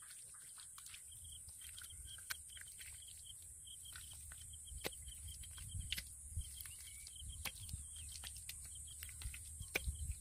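Wet mud being pressed and slapped into shape by hand, giving soft squelches and scattered sharp clicks over a faint low rumble. A high, rapid chirping repeats several times a second behind it.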